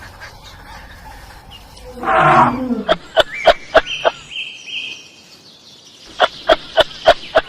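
An animal gives one loud call that falls in pitch, followed by two quick runs of sharp clicks.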